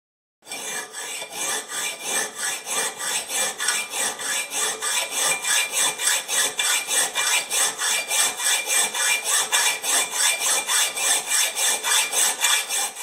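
Rapid, even back-and-forth rasping strokes, several a second, like a saw or file worked steadily.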